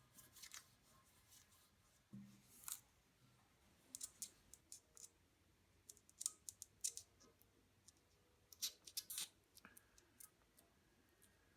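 Faint, scattered crisp clicks and crackles of hands working adhesive-backed rubber pads, peeling the backing and pressing the pads onto roof rack parts, some in quick little clusters.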